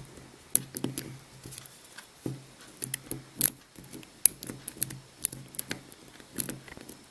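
Homemade lock pick raking the pin tumblers of a Master Lock padlock under tension: irregular small metallic clicks and scratches, the loudest click a little past four seconds in.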